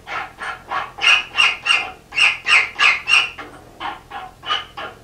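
Hand file pushed in screechy strokes, about three a second, across the edge of a forged square washer clamped in a bench vise. It is taking off the sharp burr left where the washer was cut from the bar.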